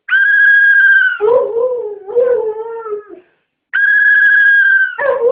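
A steady high-pitched tone sounds for about a second and is answered by a Siberian husky's wavering howl. The pair repeats: a second tone, then the husky howling again near the end.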